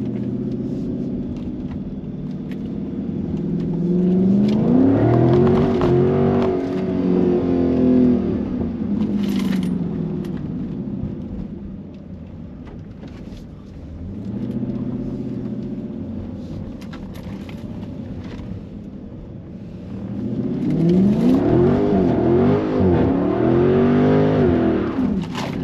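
Widebody Dodge Charger's V8 engine revving hard twice, its pitch climbing and dropping in quick repeated waves, with steadier, quieter running in between, as the car is driven hard on a wet road.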